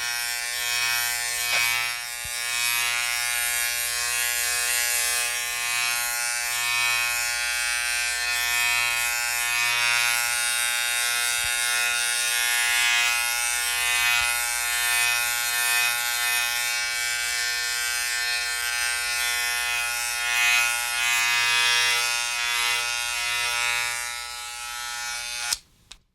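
Vintage electric razor running with a steady buzz, a stack of even tones under a hissy rasp. It stops abruptly near the end.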